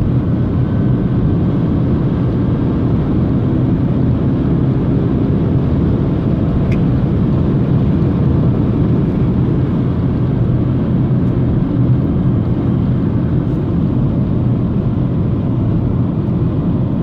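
BMW E90 320i on the move, with steady road and drivetrain noise and a faint high whine over it. The owner is unsure whether the whine comes from the rear differential or the gearbox.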